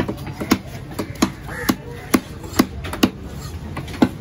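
A long knife chopping through fish fillet into a wooden log chopping block, a steady run of sharp knocks about two a second.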